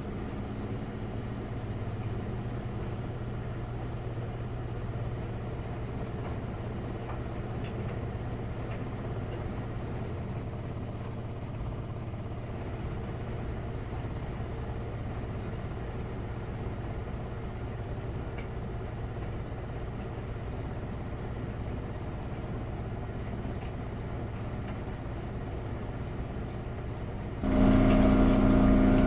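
Miele Novotronic W921 washing machine running with a steady low hum mid-cycle. Near the end a louder humming with several steady tones cuts in suddenly, in the manner of the drain pump switching on to empty the drum.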